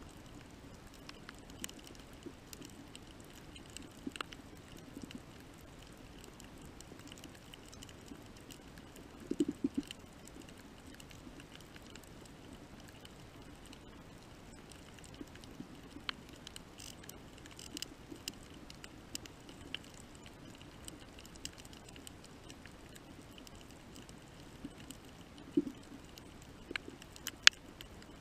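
Underwater reef ambience: a faint steady hiss with scattered sharp clicks and crackles, a short run of low knocking pulses about nine seconds in, another low knock near 25 seconds, and a sharper click near the end.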